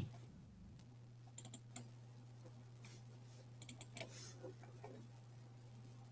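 Faint clicking of computer keys, in two short flurries about one and a half and four seconds in, over a low steady hum.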